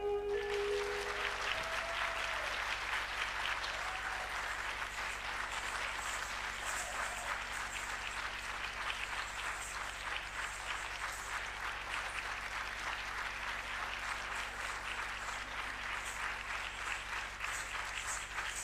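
Audience applauding steadily, clapping that eases off only slightly, as the last note of the dance music dies away at the very start.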